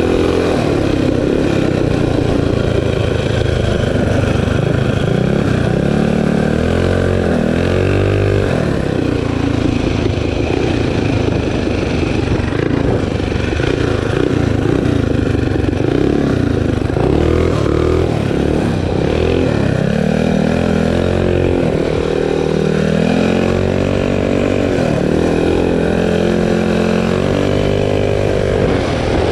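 A minibike's small single-cylinder engine running hard at speed, its revs climbing and dropping several times, over steady wind and road noise.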